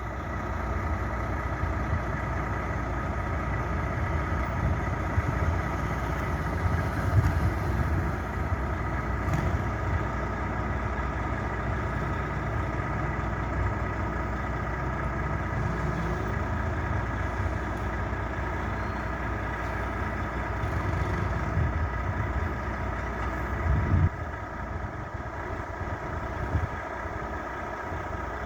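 Volvo FH 540 truck's 13-litre straight-six diesel engine idling with a steady deep rumble. About 24 seconds in it gives a brief louder surge and then runs quieter.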